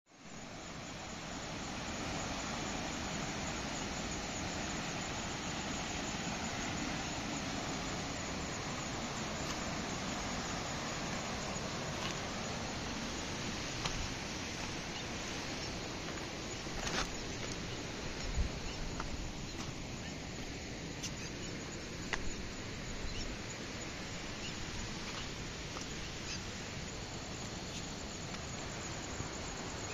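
Steady rush of a shallow river flowing over a stony bed, with a few short clicks here and there.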